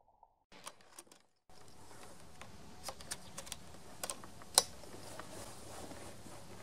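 Mechanical clicks and clacks of a Reximex Throne PCP air rifle being handled and readied for a shot: a few clicks about a second in, then scattered clicks, the sharpest a little past halfway.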